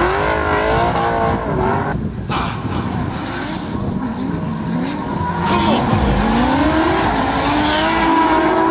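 Modified drift cars' engines revving hard, the pitch repeatedly climbing and falling, over the hiss of tyres squealing and skidding. There is a brief break about two seconds in.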